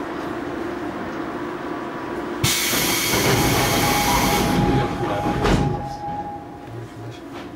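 Seoul Metro 2000-series subway car pulling out of a station: a sudden loud burst of compressed-air hiss lasting about two seconds over the car's steady hum, then a steady whine as the train starts moving, with a single thump a little later.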